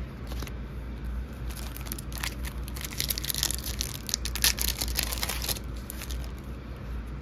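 Foil wrapper of a Pokémon card mini pack being crinkled and torn open by hand. There is a dense crackling from about one and a half seconds in until about five and a half seconds in.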